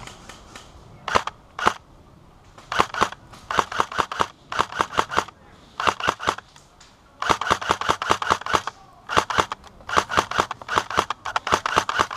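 Airsoft gun firing: two single shots, then repeated rapid bursts of sharp snapping shots, about ten a second.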